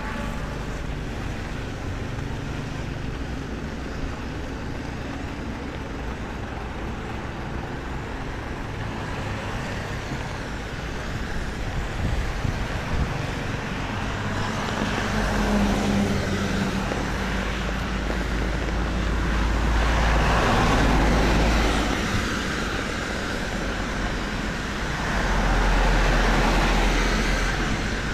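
Road traffic passing on a wet road: vehicles going by with tyre swish on the wet asphalt over a steady low rumble. The passes swell loudest about 15, 20 and 26 seconds in.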